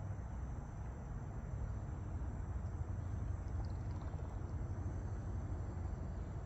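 Steady low outdoor rumble with a faint, high, continuous insect trill above it.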